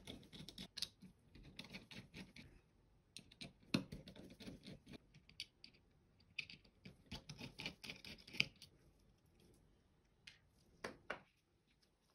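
Small screwdriver backing screws out of the plastic underside of a SteelSeries Rival 310 gaming mouse: faint scratchy turning in a few spells, with light clicks of the plastic parts and a couple of clicks near the end.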